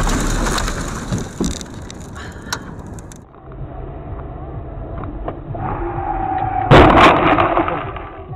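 Car collision caught by a dashcam: over road noise, a steady high tone sounds for about a second, then a loud sharp crash of impact about two-thirds of the way in, which dies away within a second. The first second and a half holds a loud rushing noise that gives way to quieter road noise.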